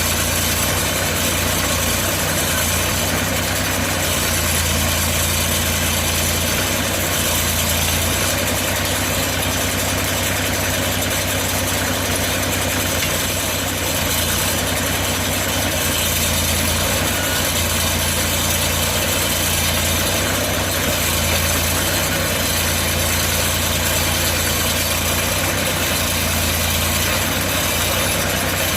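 Portable bandsaw sawmill's engine running steadily with a constant low hum and no change in load.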